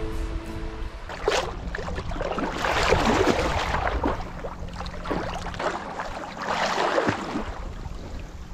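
Seawater sloshing and splashing right at the microphone of a camera held at the water's surface, in several surges. The loudest stretch comes a few seconds in. The tail of background music dies away in the first second.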